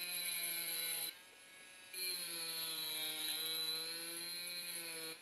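Small corded rotary tool with a diamond tip grinding into a drinking glass: a steady high-pitched whine. It drops away for under a second about a second in, then returns with a slight waver in pitch.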